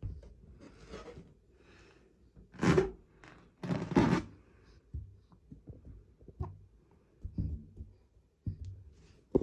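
Short bursts of rustling noise with soft knocks, the two loudest about two and a half and four seconds in.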